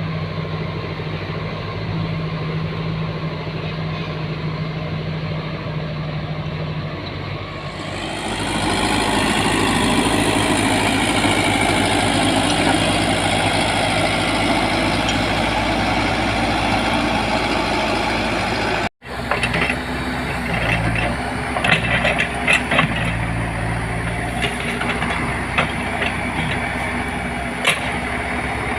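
Diesel engine of heavy road-building machinery running steadily, then working louder about eight seconds in. After a brief dropout about two-thirds through, the engine runs on with scattered metallic clanks and knocks.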